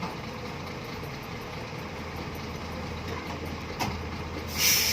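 Heavy diesel engine idling steadily, with a short sharp knock near the end and a burst of hiss just before it ends.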